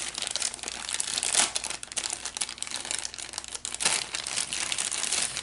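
Packaging crinkling and rustling in hand, with many small irregular crackles, as multimeter test leads are unwrapped.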